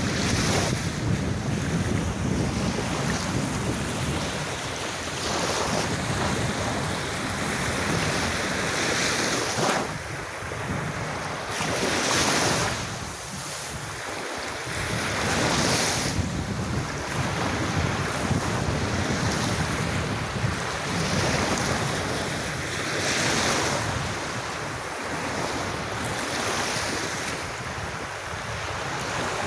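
Sea waves washing onto a beach, the surf swelling and easing every few seconds, with wind gusting across the microphone.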